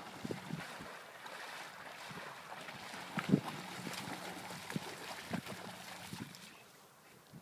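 A German Shorthaired Pointer bounding through shallow lake water, splashing unevenly with each leap, a few splashes louder than the rest, over wind on the microphone; the splashing dies away near the end.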